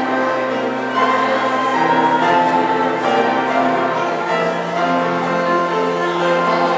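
Church music with slow, sustained chords, the held notes changing every second or so.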